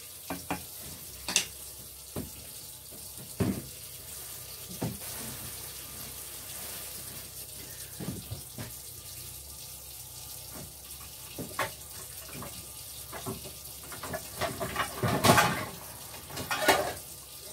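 A kitchen tap runs steadily into the sink, left on for the water to run cold. Scattered knocks and clatter of pots and utensils come through it, busiest and loudest near the end.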